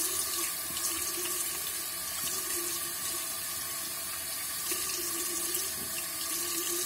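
Bathroom sink tap running steadily into the basin while a face is washed with cupped hands.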